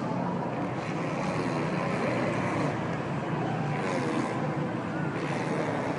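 A one-year-old boy blowing raspberries: his lips trill wetly with saliva in a drawn-out 'bllllrpppp'.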